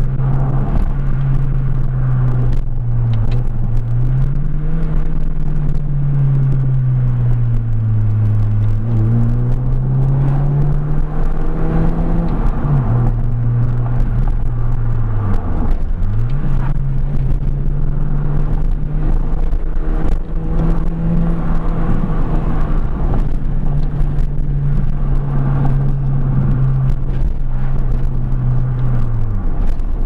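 BMW Mini's 1.6-litre four-cylinder petrol engine pulling along the road, heard from inside the cabin over tyre and road rumble. The engine note climbs and falls with the gears, dropping sharply at shifts about 13 and 16 seconds in and again near the end. The engine has a newly fitted ignition coil and leads, which the owner credits with finally curing its misfire.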